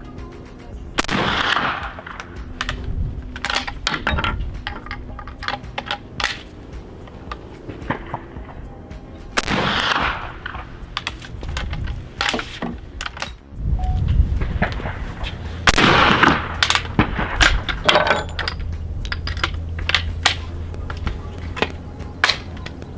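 Three shots from Springfield Model 1873 trapdoor rifles firing black-powder .45-70 rounds: one about a second in, one about eight seconds later, and one near sixteen seconds. Between the shots come sharp metallic clicks as the trapdoor breech is opened, the spent case is pulled and a fresh round is loaded.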